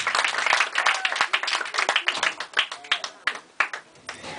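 Audience clapping, thinning to a few scattered claps and dying away near the end.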